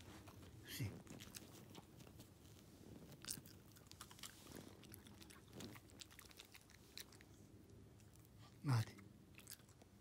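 Dogs chewing and crunching small treats, with faint, irregular clicks and crunches. A brief, falling voice-like sound comes near the start and again, louder, about nine seconds in.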